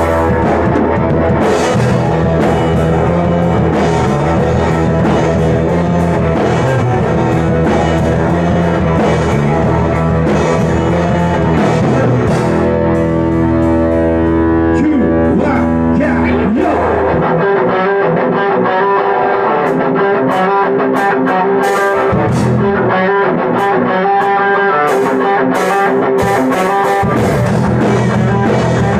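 Rock band playing live: electric guitars through amplifiers, a drum kit with cymbals, and a singer's voice, loud and continuous. The deep bass drops away a little past halfway while the guitars and drums carry on.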